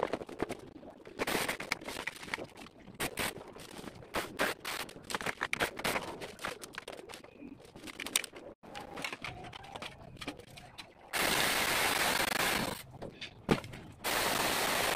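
Crackling and snapping of leafy branches being handled. Then, about eleven seconds in, a battery-powered portable saw runs in two short, loud, steady bursts, cutting through a branch.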